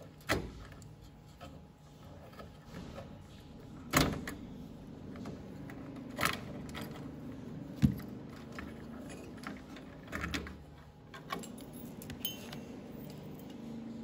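Sharp plastic and metal clicks and knocks, several of them a second or more apart, as the push-pin clips of an Intel stock CPU cooler are released and the cooler is worked off the motherboard.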